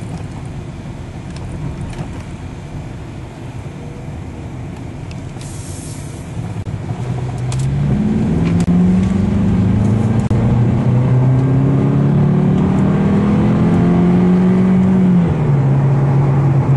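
Volkswagen Passat heard from inside the cabin, at first mostly road and tyre noise. About seven seconds in the engine pulls harder and its note rises and grows louder. Near the end the note drops as the automatic transmission shifts up, shifting normally with a replaced transmission control unit.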